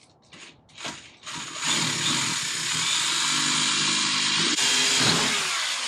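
Power drill with a sharp bit drilling out a rusted license-plate fastener. After a few light taps it starts about a second in, runs steadily while cutting through the metal, and stops just before the end.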